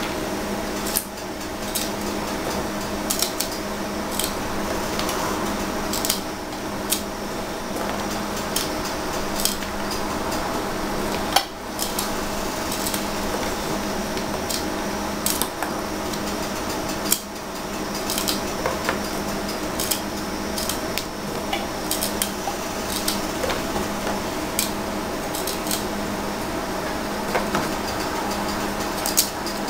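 Fresh green beans snapped by hand over a wooden cutting board: irregular crisp snaps and light knocks, one louder snap about halfway through, over a steady low hum.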